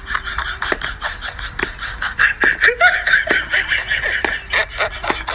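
Laughter in quick, broken bursts.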